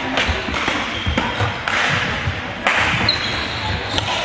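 Badminton rally: rackets strike the shuttlecock sharply about once a second, with low thuds of players' footwork on the wooden court floor over the steady background noise of a sports hall.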